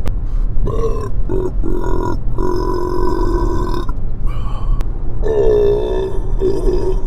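A man belching again and again, brought on by a carbonated diet soda: about six belches, the longest two drawn out for a second or more, over a steady low hum of the moving car.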